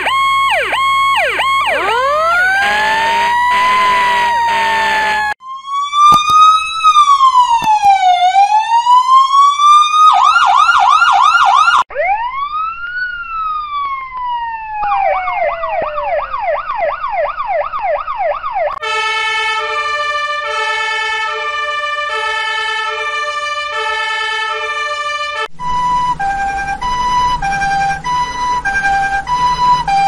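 A string of emergency-vehicle siren variations, one cut straight to the next. Slow wails rise and fall and fast yelps repeat over the first half, then two-tone sirens alternate between a high and a low note from about two-thirds of the way in.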